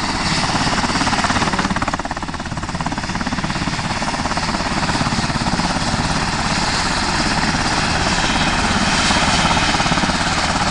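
Sikorsky H-60 Black Hawk helicopter running on the ground with its main rotor turning: twin turboshaft engines and a rapid, steady blade beat with a high whine, growing slightly louder toward the end.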